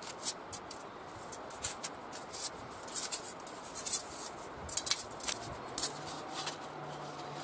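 Thin sheet-metal pieces of a camping-stove windbreak and pot holder clicking, tapping and scraping as they are fitted together by hand, in irregular light knocks.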